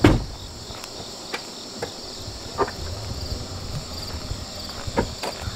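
Insects chirring steadily, a high constant trill, with a loud thump right at the start and a few light clicks or knocks later on.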